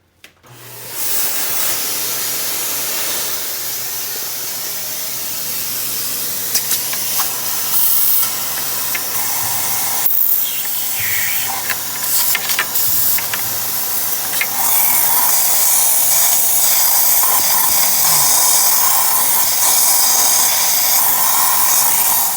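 Vacuum cleaner switched on about half a second in and running steadily with a homemade nozzle, sucking debris out of an engine's spark plug holes, with scattered short clicks and a louder stretch in the second half.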